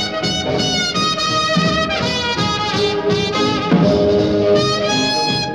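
Background music: a jazzy brass tune with trumpet and saxophone playing held melodic notes.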